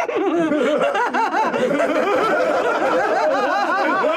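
Several voices laughing together in a continuous gloating cackle, the villains' laugh after a scheme to make things go wrong.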